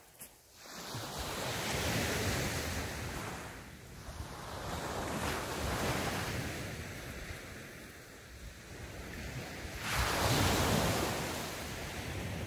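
Small sea waves breaking and washing up the beach, rising and falling in three swells about four seconds apart.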